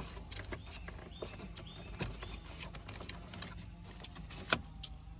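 Plastic clicking and rattling as a turn signal switch is wiggled loose from a car's steering column, a string of small irregular clicks with one sharper click about four and a half seconds in.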